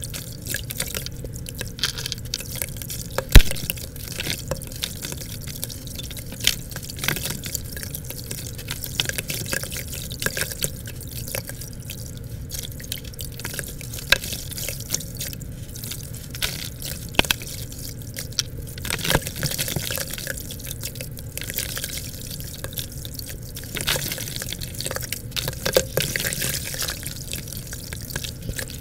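Red gritty dirt crumbled by hand into muddy water in a plastic bucket: crumbs and drips patter and splash into the water in many small irregular clicks. One sharp knock stands out about three seconds in.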